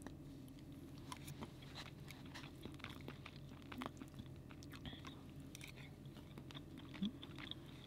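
A person quietly chewing teriyaki-glazed salmon, with small clicks and scrapes of a metal fork against a plastic plate.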